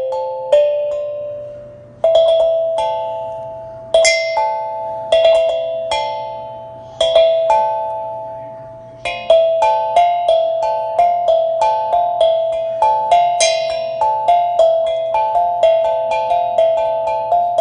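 Tongue drum being played: single struck notes that ring out and fade, in a slow melody that quickens about halfway through into a faster run of notes.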